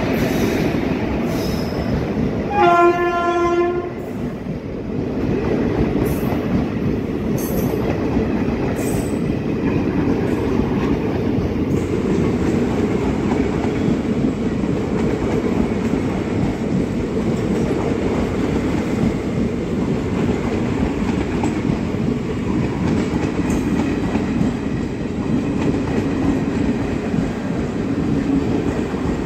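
Indian Railways passenger coaches of an express train rolling past at speed, a continuous rumble and clatter of wheels on rail. About two and a half seconds in, a train horn sounds one blast of about a second.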